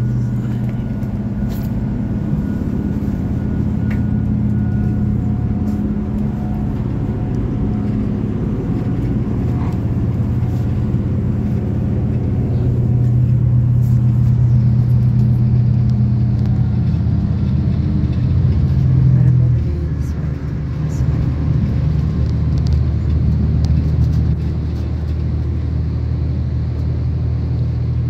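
Inside the carriage of a V/Line diesel passenger train running along the line: a steady low engine hum over the rumble of the wheels on the track. The engine note swells about two-thirds of the way through, then eases off.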